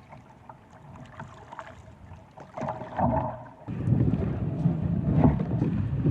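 Kayak being paddled: water sloshing and knocks on the hull, turning much louder and rumbling about four seconds in.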